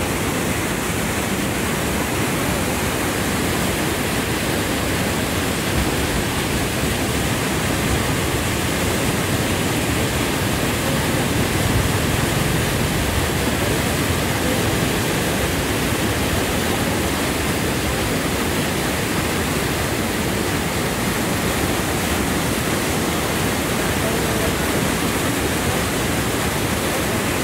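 Water released from a dam rushing through a concrete outlet channel in turbulent whitewater: a steady, unbroken rush.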